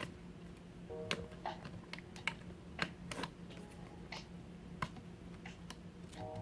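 Scattered, irregular light clicks and taps from small parts and tools being handled inside an open MacBook Pro as its battery connector is undone and RAM modules are unlatched, over a faint steady hum.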